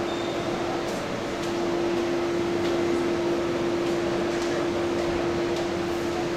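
Steady air-conditioning hum and hiss with a constant mid-pitched tone.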